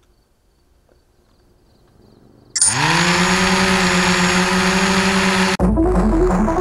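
Faint crickets at first, then about two and a half seconds in a quadcopter's electric motors and propellers spin up sharply and hold a steady buzzing whine. About a second before the end this cuts to electronic music with a heavy bass.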